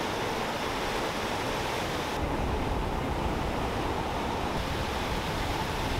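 Ocean surf breaking and washing through shallow water, a steady hiss of waves, with some wind on the microphone. The hiss dulls slightly about two seconds in.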